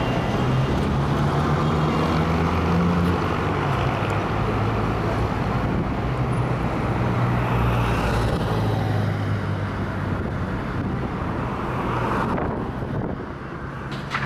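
Road traffic on a busy street: car engines running steadily, with a classic American car passing close by about halfway through. The traffic noise drops off near the end.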